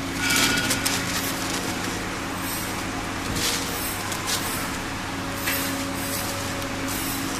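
Steady hum of the heat press's hydraulic pump motor running, with a few brief rustles as a large printed sheet is spread and smoothed by hand on the press bed.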